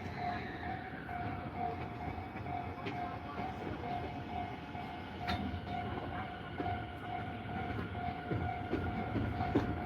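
Japanese level-crossing warning bell ringing steadily at nearly three strokes a second, over the rumble of a passing train. The train's wheel clicks grow busier near the end.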